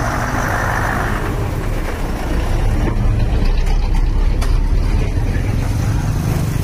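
Low engine rumble of road vehicles running close by, growing louder a couple of seconds in as a small motorcycle passes close. A hiss at the start cuts off about a second in.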